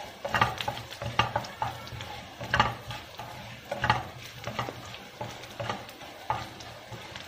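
Mustard and cumin seeds spluttering in hot ghee with chopped green chillies, sizzling with irregular sharp pops several times a second, while a wooden spatula stirs and scrapes across a nonstick pan. The crackle of the tempering is what shows the seeds are spluttering well and giving up their flavour.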